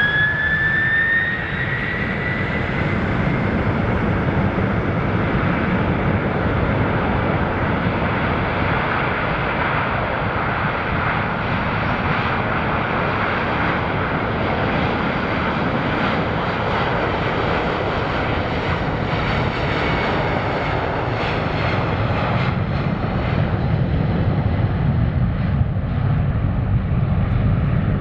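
Boeing 767-400ER's twin jet engines at takeoff power during the takeoff roll. A whine rises in pitch over the first two seconds, then a steady jet noise holds, with the low rumble growing stronger in the last few seconds as the airliner rotates.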